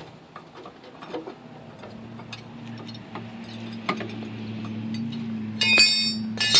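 Light metallic clicks and knocks as the axle is let down on a floor jack, with a steady low hum from about a second and a half in, then a short clatter of ringing metal clanks near the end.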